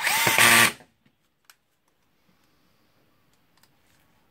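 Cordless drill-driver running briefly, driving a screw into the gear housing of an angle grinder, under a second at the start, then a single faint click about a second and a half in.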